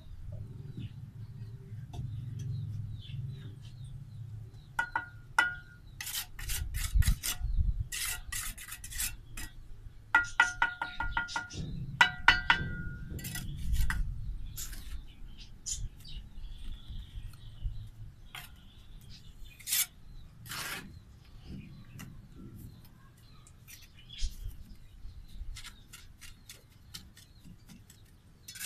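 A steel trowel scraping and clinking against a metal mortar pan, the pan ringing, through the first half; later, softer scrapes and taps as the trowel spreads mortar on bricks.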